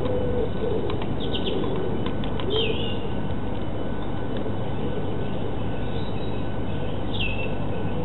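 A pigeon cooing low near the start, with short high chirps from small birds about a third of the way in and again near the end, over a steady hiss and low hum.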